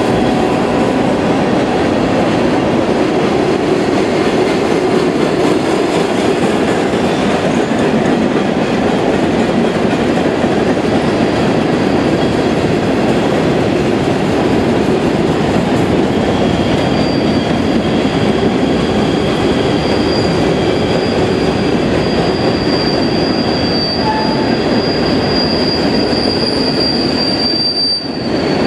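A long train of empty open coal hopper cars rolling past, a steady loud rumble and rattle of steel wheels on the rails. Partway through, a thin high squeal from the passing cars sets in and grows louder toward the end.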